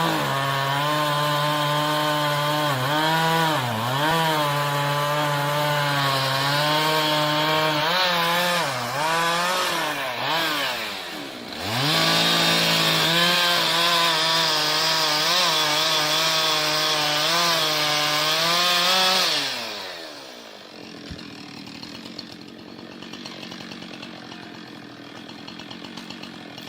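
Two-stroke chainsaw running at high revs while cutting wood, its pitch dipping again and again as the chain loads up in the cut. About halfway through, it drops off briefly and revs back up. About twenty seconds in, it winds down and falls silent, leaving a much quieter steady background.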